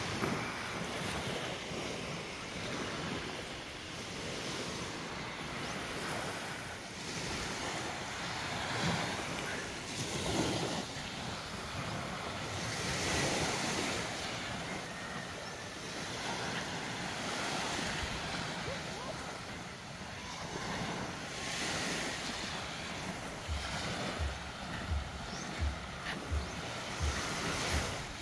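Small sea waves breaking and washing up a sandy shore, the wash swelling and easing every few seconds, with wind buffeting the microphone. Near the end, a run of low thumps about twice a second.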